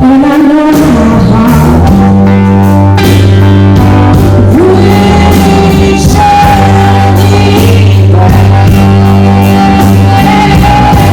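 A rock song played at full volume: a singer over guitar, bass and drum kit, with sustained low bass notes and steady drum strokes.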